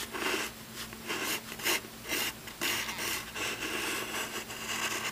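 Mechanical pencil scratching across paper in a run of short sketching strokes, a few a second.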